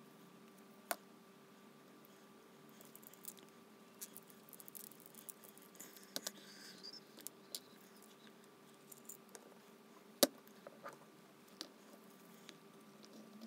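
Small steel parts of a bicycle rear hub clicking and clinking as they are handled and taken apart: the axle, driver, sprocket and ball-bearing retainer. Scattered light ticks, with a sharper click about a second in and the loudest about ten seconds in.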